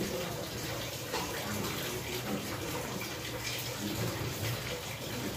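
Steady rushing noise, like water running from a tap.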